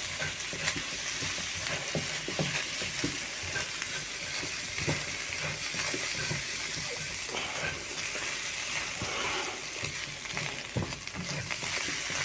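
Beaten egg frying with spices in an oiled pan, sizzling steadily while a spatula stirs it, with frequent light scrapes and knocks against the pan.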